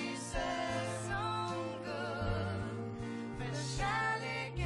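Women singing a song with vibrato over band accompaniment.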